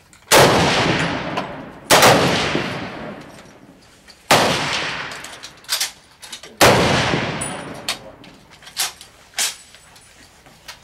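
Four rifle shots from the prone firing line, spaced roughly two seconds apart, each followed by a long echoing decay under the covered firing point. A couple of much lighter sharp clicks follow near the end.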